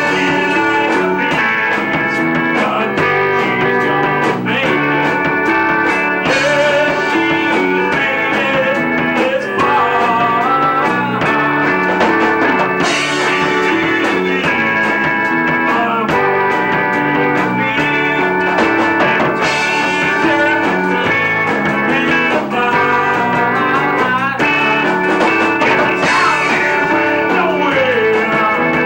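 Rock band music: electric guitar, organ and drums playing together at a steady beat, with a few bent guitar notes.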